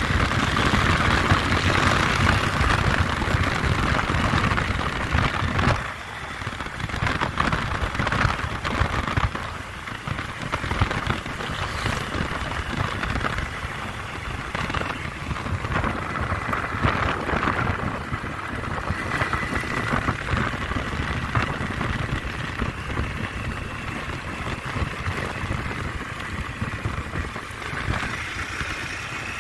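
Motorcycle ridden at road speed: wind rushing over the microphone, with the engine running under it. The noise drops noticeably about six seconds in.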